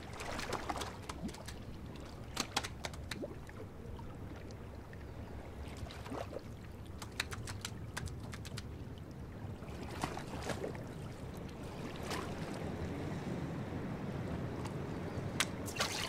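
Handling noises aboard a plastic fishing kayak: scattered knocks and clicks over a steady rush of wind and water, with a short cluster of splashes near the end as a fish is slipped back into the sea.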